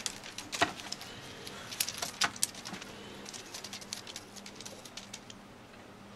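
Sharp clicks and plastic crinkles from a cat batting at a wand toy and shifting in a plastic-lined wooden box. The loudest clicks fall in the first two and a half seconds, then thin out to lighter ticks.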